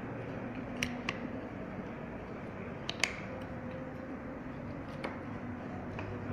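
Small sharp clicks of a car door lock's metal parts being handled and fitted together by hand, about six in all with the loudest about three seconds in, over steady background noise.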